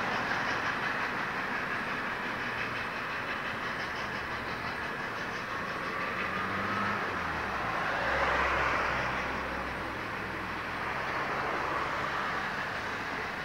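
Passenger coaches of a train hauled by the 141R-class 2-8-2 steam locomotive 141R 1244 rolling past, their wheels clattering over rail joints and pointwork. The sound swells briefly about eight seconds in.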